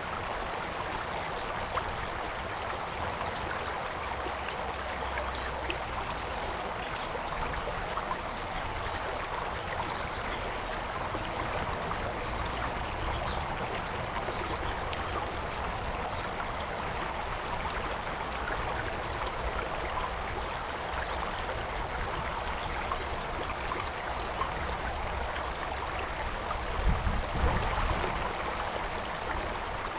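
Mountain stream water rushing and burbling over rocks, a steady even rush. About 27 seconds in, a brief low rumble rises under it.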